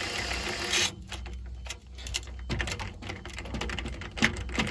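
Rattle gun (impact wrench) spinning the spring-brake release bolt back in, a steady run that cuts off suddenly about a second in. It is followed by scattered light metallic clicks.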